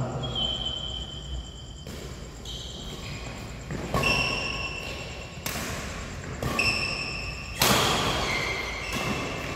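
Badminton rackets striking the shuttlecock about five times in a rally, each sharp crack ringing on in the hall, the loudest about three-quarters of the way through. Short high-pitched squeaks of court shoes on the floor come between the hits.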